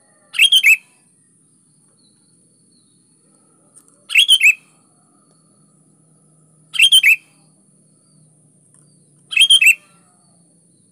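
Sooty-headed bulbul (kutilang) singing: four short phrases, each of about three quick bright notes, spaced a couple of seconds apart.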